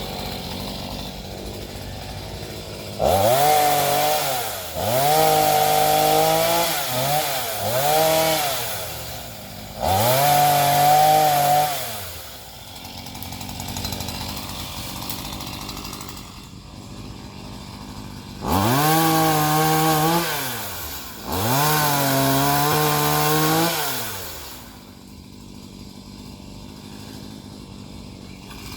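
Chainsaw idling and revved to full throttle six times as it cuts a tree limb into pieces, each cut rising in pitch, holding, then falling back to idle; four cuts in quick succession, a pause at idle, then two more.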